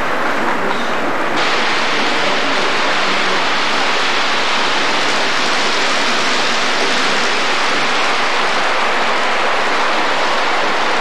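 Steady, loud rushing hiss with no separate clicks or tones, slightly brighter from about a second in.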